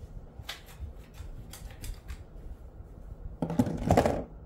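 Handling noises: scattered light clicks and rustles, then a louder burst of rustling and knocking about three and a half seconds in, lasting under a second.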